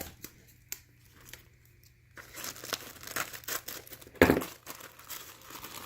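A small gift package being handled and opened by hand: a few sharp clicks at first, then crinkling and tearing of the wrapping from about two seconds in, with one louder crackle after about four seconds.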